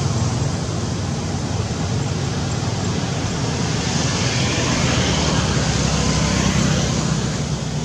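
Steady low rumbling background noise, a little louder from about four seconds in and easing near the end.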